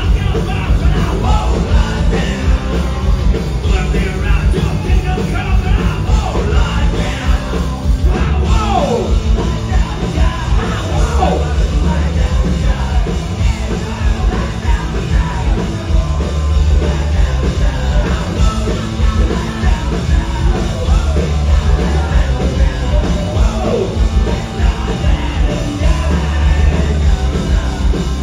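Punk rock band playing live and loud: electric guitar driving the song, with shouted vocals over it.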